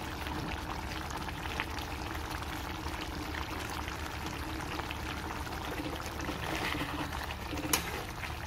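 Pork curry simmering in a metal kadai as its liquid reduces, a steady bubbling, crackling hiss with many small pops. Near the end comes one sharp clink, the metal spatula knocking against the pan.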